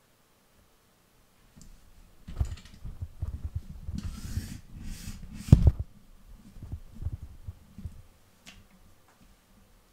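Handling noise of a camera rig with a furry windscreen microphone: rustling and a run of low bumps and knocks as it is gripped and moved, with one sharp knock about five and a half seconds in. It settles about eight seconds in, with a faint click after.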